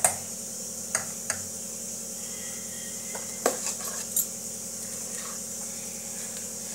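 A steel spoon clinking a few times against a steel mixing bowl as baking powder is added to batter, with the batter being stirred by hand, over a steady hiss.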